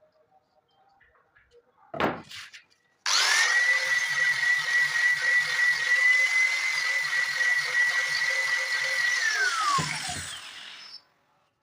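An electric power tool is switched on after a single knock. Its motor whine rises to a steady pitch and runs for about six seconds, then falls in pitch as the tool is switched off and spins down.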